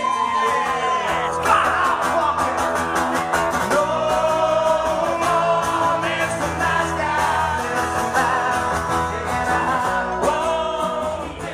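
Live acoustic band playing: several men's voices singing together over strummed acoustic guitars.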